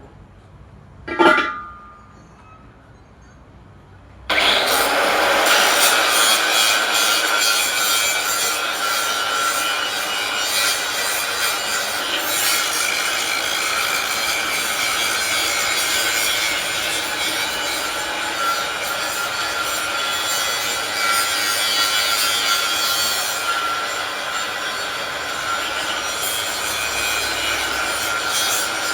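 A power tool working metal, with a steady rasping noise that starts abruptly about four seconds in. A brief clink comes about a second in.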